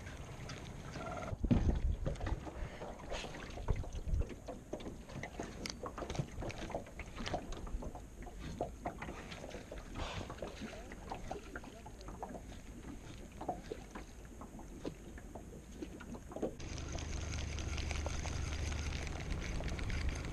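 Small boat on the water: irregular knocks and clicks of water against the hull and of rod and spinning reel being handled. About sixteen seconds in, a steady low motor hum starts and keeps running.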